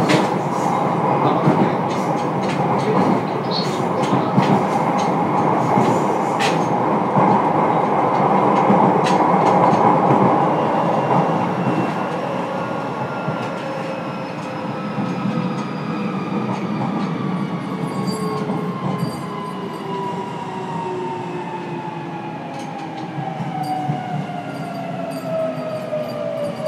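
Running noise inside a motor car of a JR Kyushu 303 series electric train: rumbling wheel-and-rail noise with rail-joint clicks. From about halfway through, several whines from the traction motors and inverter fall steadily in pitch as the train slows under braking.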